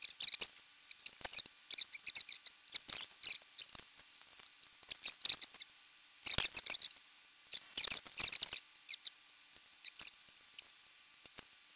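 Irregular small clicks and scratches from desoldering wires off a power supply circuit board: the soldering iron works the solder pads while the bundle of wires is pulled and handled. The sounds come in short clusters with pauses between them.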